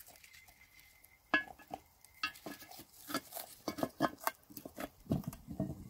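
Metal lid lifter clinking against the handle of a cast iron Dutch oven lid as the coal-covered lid is lifted off: a run of light metal clinks and knocks, with a few duller knocks near the end.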